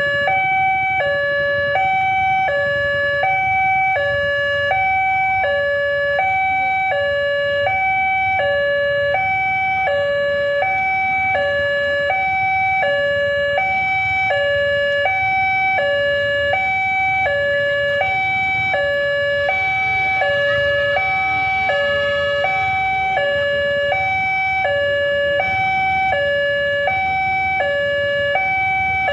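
Railway level-crossing warning alarm from a horn loudspeaker on the signal post: an electronic two-tone sound alternating steadily between a lower and a higher pitch, each held about two-thirds of a second. It signals that a train is approaching and the barrier is down.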